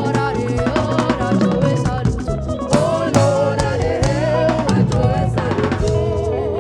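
Gospel praise band music: a drum kit plays steady snare and bass-drum hits under sustained, wavering melody lines.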